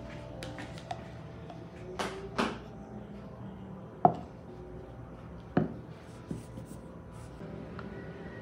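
Kitchen items being handled: two quick scrapes, then a sharp knock with a short ring about four seconds in, followed by another knock and a couple of lighter taps.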